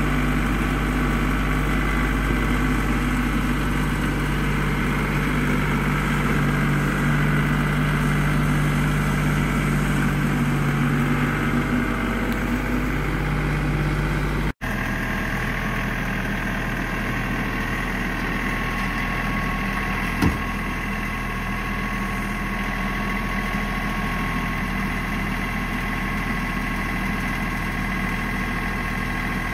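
LS G3033H compact tractor's diesel engine running steadily. About halfway through there is an abrupt momentary dropout where the engine note changes, and a single short knock comes about two-thirds of the way in.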